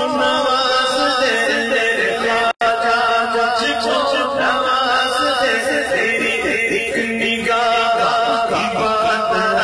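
Solo male voice singing an Urdu naat into a microphone, the melody ornamented and wavering over a steady held drone. The sound drops out for an instant about two and a half seconds in.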